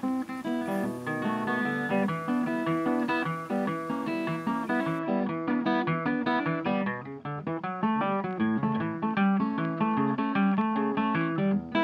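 Background music: acoustic guitar playing a quick run of plucked notes.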